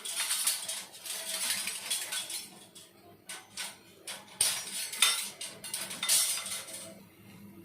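Metal spatula scraping and clinking against a frying pan in irregular bursts while a buttered bread sandwich is fried.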